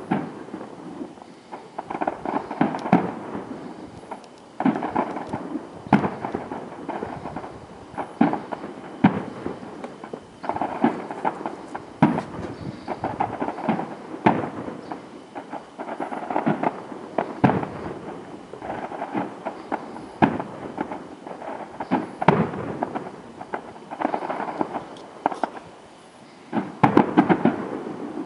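Aerial fireworks display: a run of sharp shell bangs every second or two, each followed by crackling, with a louder cluster of bursts near the end.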